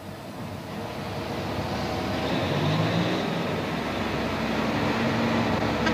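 Steady mechanical rumble and hum of a salt-loading conveyor belt running, growing louder over the first two seconds or so and then holding steady.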